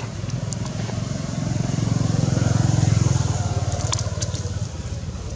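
A motor vehicle engine passing: a low rumble that swells to its loudest about halfway through, then fades away.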